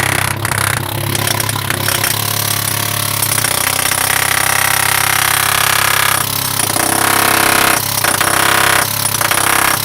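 Jackhammer hammering on a steel sheet pile, stopping briefly several times in the second half, over a steady low engine drone.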